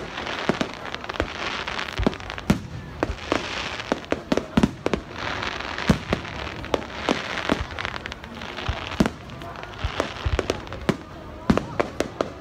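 Aerial fireworks display: shells bursting one after another in quick, irregular bangs, with a hissing crackle between them.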